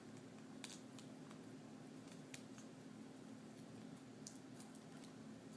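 Near silence over a steady low hum, with a few faint light clicks and taps from the video cable connector being handled and plugged into the back of a replacement laptop LCD panel.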